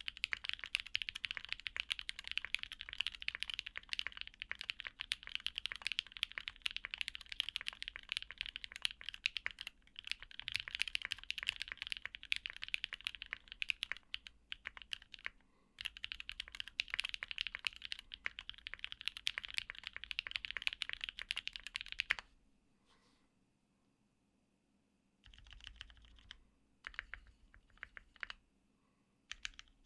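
Typing on a Singa x TGR Unikorn R2.1 60% mechanical keyboard with lubed linear switches (retooled black housings, Kailh stems), an aluminium plate and PBT keycaps. Fast continuous keystrokes with a short pause about halfway, then only scattered key presses for the last several seconds.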